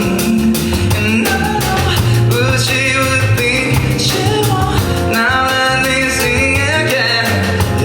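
Live pop band playing a song: singing over guitar, bass and drums, with a steady beat.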